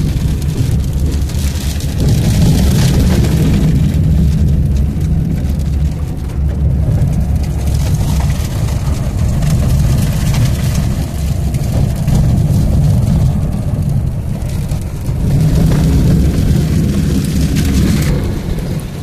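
Car driving on a dirt road in the rain, heard from inside the cabin: a steady low rumble of engine and tyres with rain hitting the windscreen and body.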